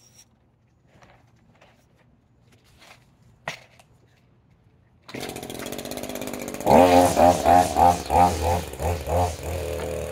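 A few faint clicks, then the small gas engine of a string trimmer comes in abruptly about five seconds in and runs. It is then revved in a quick series of throttle blips, about three a second, before settling back to a steadier idle near the end.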